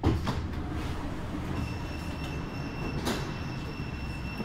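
Stadler metro train standing at a station, with a sudden clunk at the start as its doors open, then a steady rumble. A thin, steady high tone holds from about a second and a half in.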